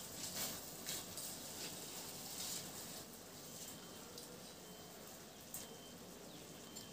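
Soaked basmati rice sliding out of a steel bowl into a pressure cooker and being scraped off the bowl by hand: a faint, soft patter and light scraping with a few faint clicks.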